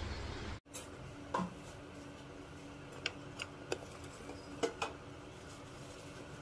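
Kitchenware being handled on a counter: a scattering of light clinks and knocks from pot lids and crockery over a faint steady hum.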